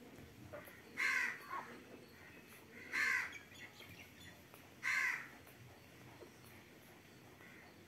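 A crow cawing three times, short harsh calls about two seconds apart.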